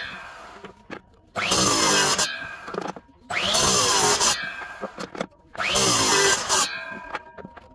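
Electric miter saw making three quick chop cuts through blocks of wood, about two seconds apart. Each cut starts suddenly at full volume, then the blade winds down with a fading whine.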